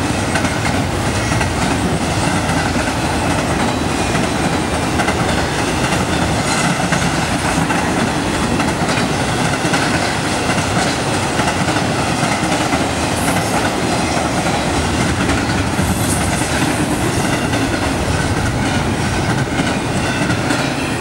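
Double-stack intermodal freight train passing, the steel wheels of its well cars running steadily and loudly on the rails.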